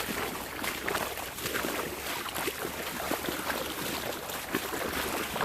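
Wading through a shallow creek: water sloshing and splashing in quick, irregular strokes over the steady rush of the running stream.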